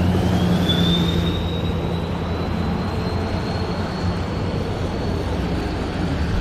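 Traffic noise close by, with a vehicle engine humming low and steady and a high whine that rises in pitch over about the first second, then holds steady.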